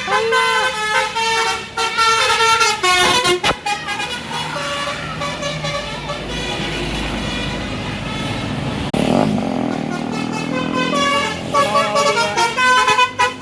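Indonesian bus's Basuri multi-tone "telolet" air horn playing melodies of rapidly changing notes, first for about four seconds and again near the end. In between, the bus's engine rumble takes over, with a sudden louder rush about nine seconds in.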